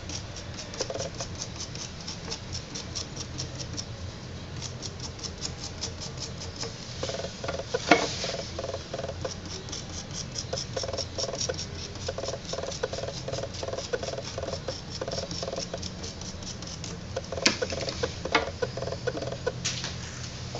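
A potter's tool scraping clay in a fast run of short ticks. The scraping pauses and resumes in stretches, and sharp knocks come about eight seconds in and twice near the end.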